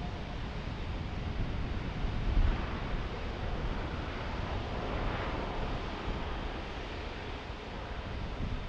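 Boeing 787-9's GEnx-1B turbofans at takeoff power on the takeoff roll, heard as a steady distant jet roar that swells a little about halfway through. Wind rumbles on the microphone underneath.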